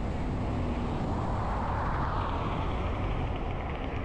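Diesel van driving on the highway: steady road and engine rumble, with a hiss that swells and fades about halfway through.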